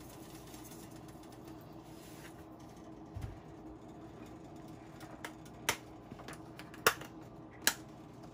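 Pot of pork hock and water heating on a stove: a steady low hum, with a soft thump about three seconds in and three sharp clicks in the last few seconds.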